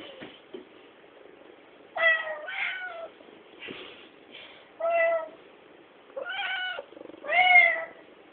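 Domestic cat meowing repeatedly, a string of separate drawn-out meows, several loud and a couple fainter, with the last one the loudest.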